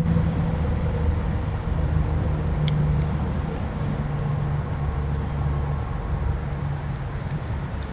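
Steady low rumble with a droning hum, mechanical in character, with a few faint, brief high chirps a few seconds in.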